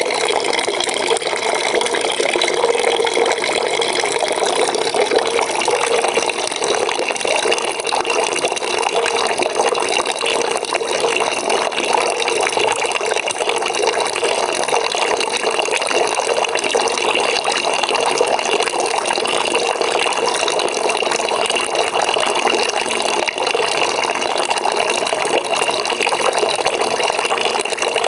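Water running from a tap into a bucket: a steady, continuous splashing fill.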